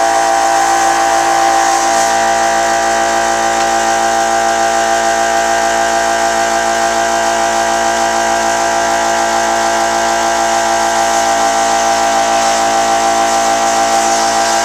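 Benchtop scroll saw running steadily while its blade rough-cuts a sheet of balsa: an even motor hum made of many steady tones, with no change in speed.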